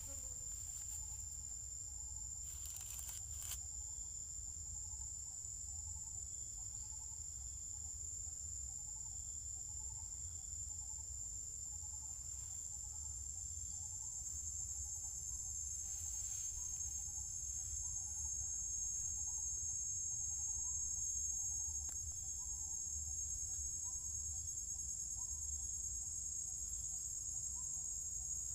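Steady, high-pitched drone of insects, crickets or cicadas, unbroken throughout. Under it, a faint short note repeats roughly every second.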